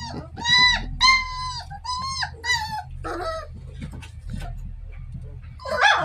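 Puppies about four weeks old whining in a run of high, arching cries over the first three seconds, with scattered scratching clicks. A louder call comes just before the end, all over a steady low hum.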